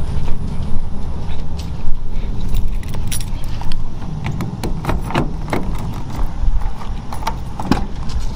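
Handling noise from a handheld phone camera carried outdoors: irregular clicks, rubbing and small metallic jingles over a steady low rumble of wind on the microphone.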